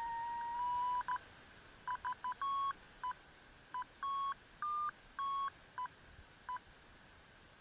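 FrSky Taranis transmitter's variometer audio: a steady electronic tone, wavering slightly in pitch, stops about a second in and gives way to irregular short and longer beeps, some a little higher in pitch, which end about six and a half seconds in. The switch from a steady tone to beeping signals the sailplane starting to climb in lift.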